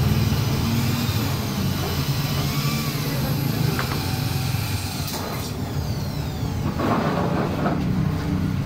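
Handheld power drill working on a steel sign frame, its motor whine coming and going, over a steady low engine hum.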